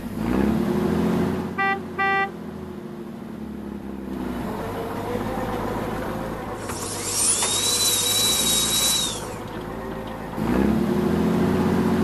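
Dubbed heavy-vehicle engine sound effect, rising in pitch as it pulls away, fading out and starting again near the end. Two short horn beeps come about two seconds in. Midway a high power-tool whine rises, holds for about two seconds and winds down.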